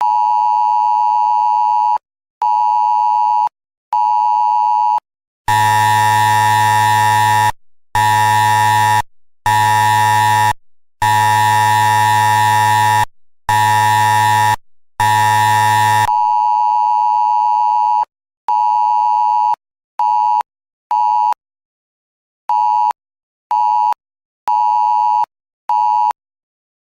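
Loud, heavily distorted electronic alert tone in the style of an Emergency Alert System attention signal, beeping on and off in an irregular pattern of long and short beeps. From about five to sixteen seconds the tone is bass-boosted and even harsher.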